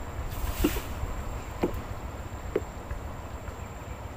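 Small wooden boat on the water: three short knocks against the hull about a second apart, over a steady low rumble, with a short hiss about half a second in.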